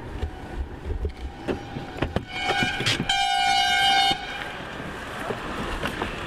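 A car horn sounds one steady honk of about a second, about three seconds in, cutting off sharply, with a shorter wavering tone just before it. Light knocks are heard elsewhere.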